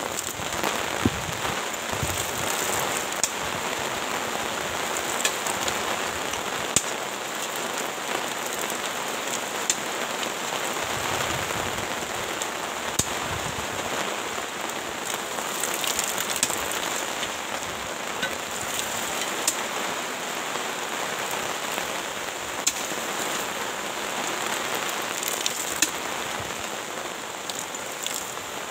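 Steady rain falling, with a sharp tap every few seconds.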